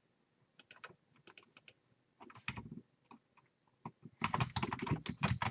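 Typing on a computer keyboard: a few scattered keystrokes, then a quicker run of keystrokes from about four seconds in.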